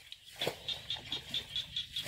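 A small animal calling: a rapid run of short, high, evenly spaced chirps, about four or five a second, starting about half a second in, with a soft knock as it begins.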